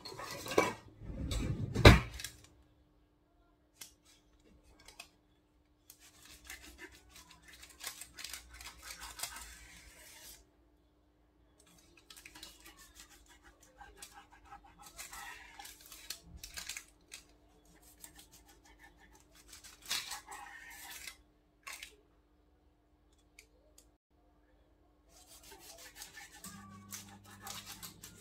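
Serrated knife sawing back and forth through a thin sponge cake sheet and rasping on the baking paper beneath, in four stretches of strokes with pauses between. A few loud knocks in the first two seconds.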